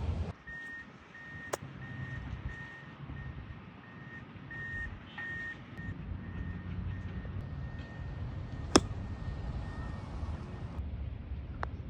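Two sharp clicks of a golf wedge striking a ball, several seconds apart, the second much louder. Behind them a vehicle's reversing alarm gives a steady run of short high beeps over a low engine rumble, stopping about ten seconds in.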